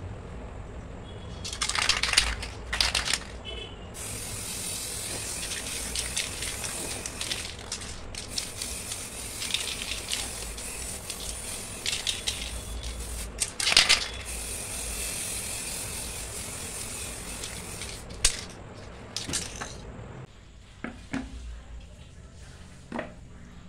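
Aerosol spray paint can spraying: a few short bursts, then long hissing passes broken by brief pauses. Near the end come a few sharp clicks and faint knocks.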